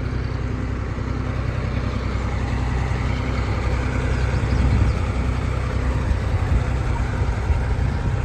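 Diesel engine of a JCB 3DX backhoe loader running steadily, growing a little louder and busier through the middle as it works under load.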